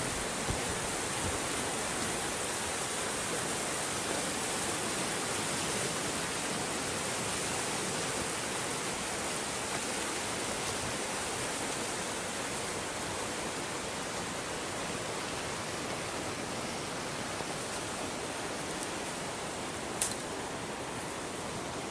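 Steady rushing of river water flowing through open leads in the ice, an even hiss, with a single sharp click near the end.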